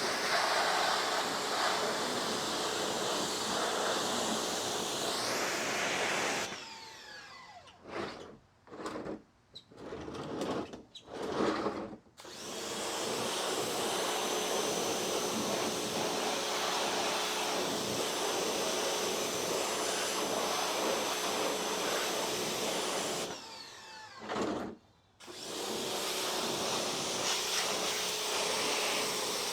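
Pressure washer spraying, a loud steady hiss. The spray stops and restarts several times in quick succession about a quarter of the way in, and cuts out once more briefly later on.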